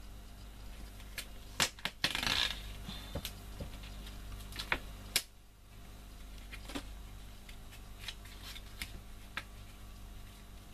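Kraft cardstock being handled and pressed flat on a tabletop: a scatter of sharp taps and clicks, with a short paper rustle about two seconds in, over a steady low hum.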